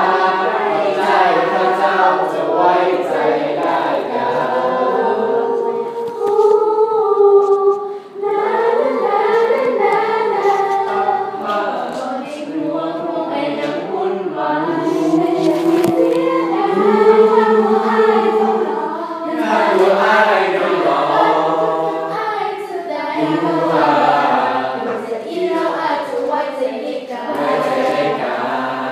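A school choir of teenage students singing a part-song in harmony, with sustained chords and a brief pause for breath about eight seconds in.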